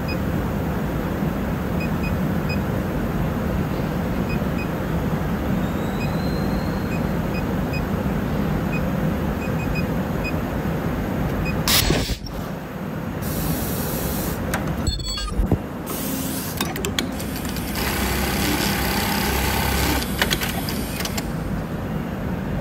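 Hikari automatic elastic-attaching sewing machine with a steady motor hum and short touchscreen key beeps in the first half. About halfway through there is a sharp clack, then several bursts of pneumatic air hiss and machine noise as it runs a sewing cycle on the elastic.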